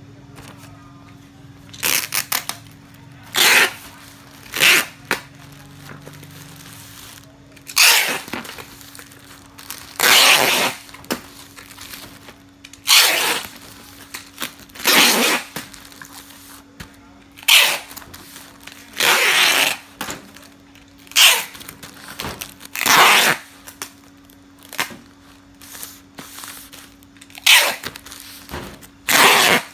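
Black plastic packaging being wrapped and handled around a parcel: repeated noisy crinkling bursts, each a second or less, coming every one to three seconds over a steady low hum.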